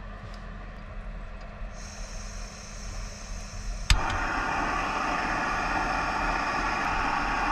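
Gas camp stove being lit: a thin hiss of gas, then a sharp click about four seconds in as the burner catches, followed by the steady rushing of the burner flame.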